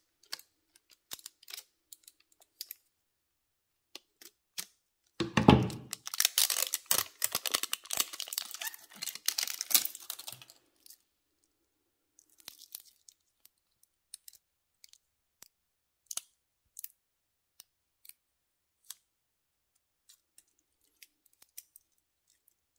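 Plastic protective wrap crinkling and tearing for about five seconds as it is stripped off a watch. After that come scattered light clicks from the links of a stainless steel watch bracelet being handled.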